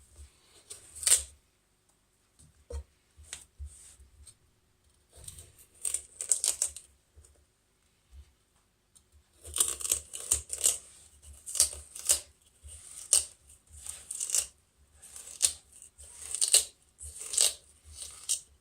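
Knife cutting and scraping into the underside of a hollowed-out black radish: a series of short, crisp strokes, a few at first, then about one a second through the second half.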